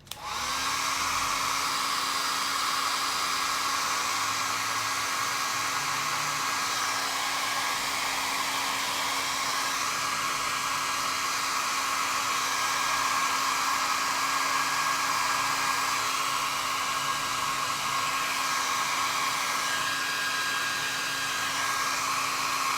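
Hair dryer switched on and running steadily at full speed, its motor whine rising briefly as it spins up, drying wet paint on a plaster piece.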